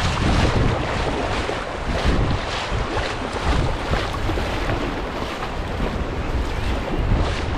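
Rushing whitewater of a creek rapid around a kayak, with repeated splashes from the water and paddle strokes about twice a second, and wind rumbling on the microphone.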